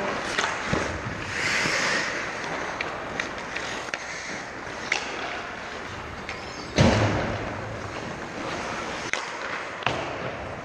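Ice hockey play: skate blades scraping on the ice, with sharp clacks of sticks and puck scattered through, and one heavy thump about seven seconds in.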